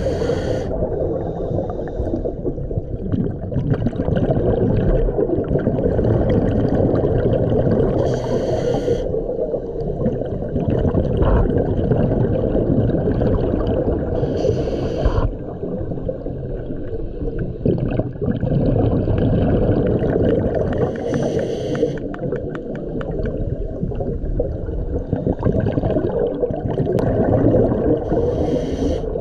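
Scuba diver breathing through a regulator underwater, heard through an underwater camera: a steady low rumble of water and bubble noise, with a short regulator hiss about every six to seven seconds.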